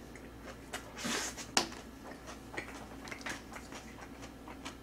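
A person slurping and chewing noodles in black bean sauce: a short slurp about a second in, then wet mouth clicks and small ticks while he chews.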